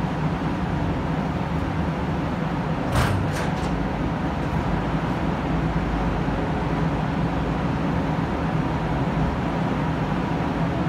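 Steady droning hum and rushing air from the ventilation of an automotive paint spray booth. Two short sharp clicks come about three seconds in.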